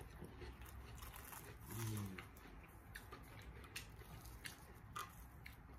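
Faint chewing and scattered mouth clicks of someone eating a fried Korean cheese corn dog off a skewer, with a short hummed "mm" about two seconds in.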